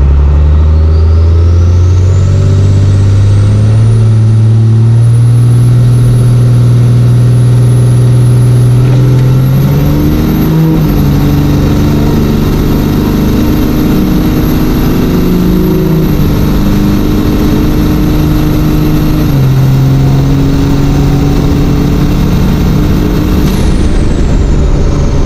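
Turbo-diesel pickup, a 12-valve Cummins, at full throttle on a drag-strip pass, heard from inside the cab. The engine pitch climbs and drops back at each upshift, about three times. A high turbo whistle rises early on and holds, then falls away near the end as the throttle lifts.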